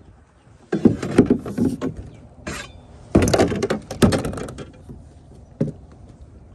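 Two spells of clattering knocks and rattles, about a second in and again about three seconds in, then a single knock near the end: gear being handled in a small boat, including a plastic cooler lid.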